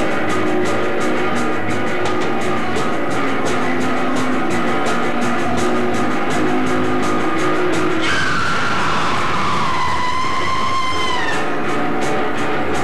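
Live noise-punk band playing loud, with a fast, even drum beat under sustained guitar. About eight seconds in the drums drop out and a high screeching tone slides downward in pitch, holds for about three seconds, then stops as the beat returns near the end.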